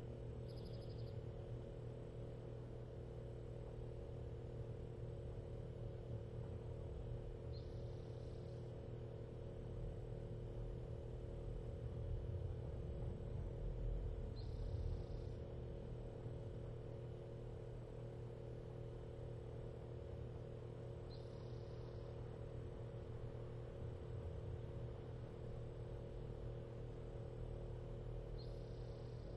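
Steady low hum and rumble of room tone, with a faint short high chirp repeating about every seven seconds.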